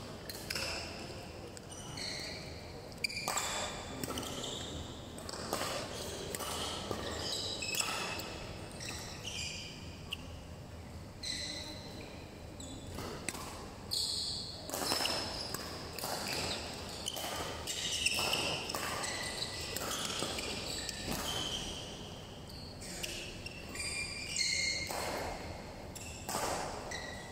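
Badminton rally: sharp racket strikes on the shuttlecock every second or two, with short squeaks of court shoes on the synthetic floor between them.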